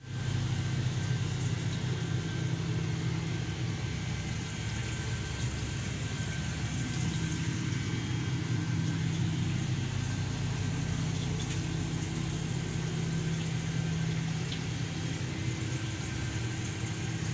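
Motor yacht's engine running: a steady low hum that does not change.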